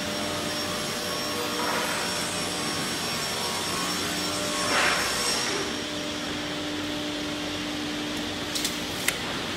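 Steady drone of workshop machinery: a motor hum with a high whine and a hiss over it. A louder swell of noise comes just before halfway, and a few sharp knocks come near the end.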